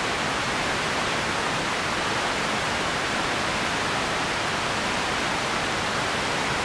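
Steady, even hiss of empty ambience noise with no distinct events, brightest in the upper-middle range.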